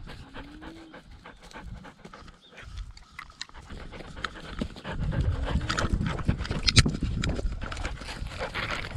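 Australian kelpie sheepdog panting hard while running, heard close up from a camera strapped to her collar, with irregular thumping and knocking from her movement that grows much louder about halfway through.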